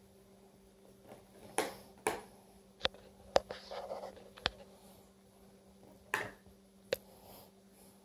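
Clear plastic clamshell container clicking and crackling as a cat bites and paws at it, trying to get it open: about seven sharp clicks at uneven intervals, with soft crinkling between. A faint steady hum underneath.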